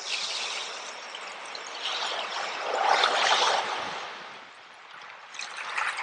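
Running water of a small stream trickling and pouring, swelling louder about halfway through and easing off afterwards.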